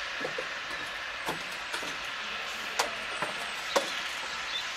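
Steady hiss from a steam train, with a handful of sharp clicks and knocks at irregular spacing.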